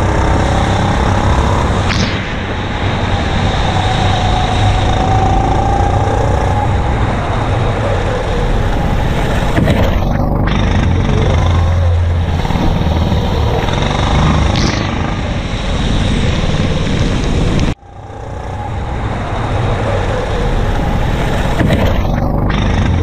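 Go-kart engine running hard at rising and falling revs, heard from a camera mounted on the kart. About 18 seconds in the sound cuts out abruptly and then comes back.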